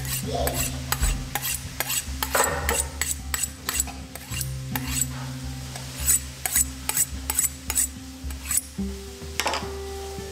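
Chef's knife being honed on a honing steel: quick, even strokes of blade on steel, about three a second, stopping near the end.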